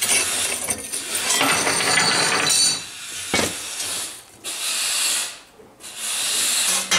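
Steel parts of a homemade charcoal grinder being handled: plasma-cut steel blades and a slotted steel comb plate scraping and knocking against each other in several stretches, with a sharp knock about three and a half seconds in.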